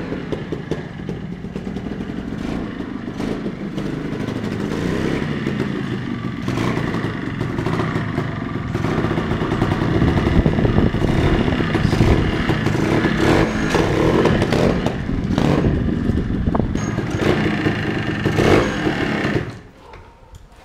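Montesa 260 trials bike's freshly rebuilt two-stroke engine running as the bike is ridden, getting louder as it comes close. The engine cuts off suddenly about a second before the end.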